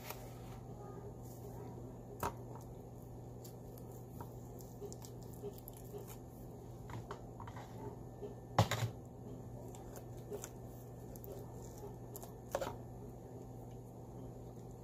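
Scattered light clicks and knocks of hands handling things at a kitchen counter, with a louder double knock about eight and a half seconds in, over a steady low hum.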